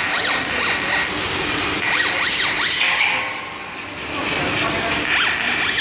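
Laser cutter at work on a wooden sheet: a steady hiss, with the head's drive motors whining in quick rising and falling glides as the cutting head darts back and forth. The sound dips briefly a little past the middle.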